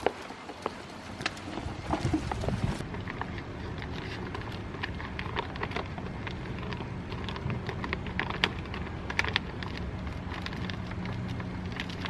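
Crackling and rustling of a large decal sheet as it is unrolled and handled, many short irregular crackles, over a steady low hum.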